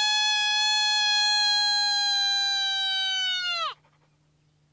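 One long coyote howl: it holds a single steady pitch, then slides down and cuts off sharply a little under four seconds in.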